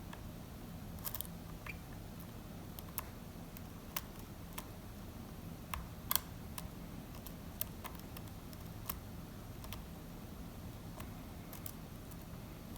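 Lock pick working the pins of a pin-tumbler challenge lock under tension: scattered small metallic clicks, irregular and about one a second, over a low steady hum.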